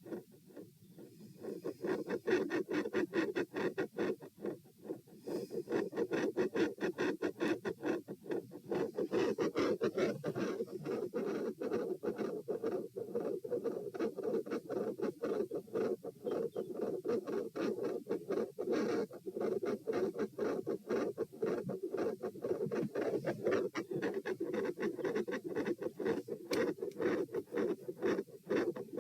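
Fast heartbeat picked up through a stethoscope on the chest, with dense repeated thumps and scratchy rubbing from the chest piece. It dips briefly about a second in.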